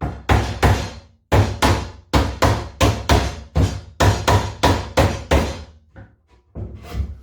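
A hammer knocking the glued timber sides of a Commercial beehive brood chamber together at the joints: a quick, even run of about fifteen blows, roughly three a second, then a few lighter knocks near the end.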